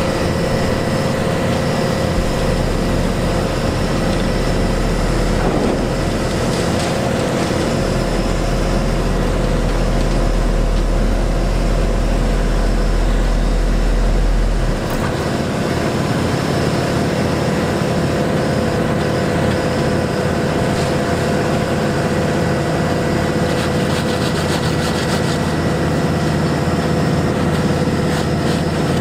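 Heavy diesel paving machinery and trucks running steadily, with a steady high whine over the engines. A deep low rumble underneath stops about halfway through.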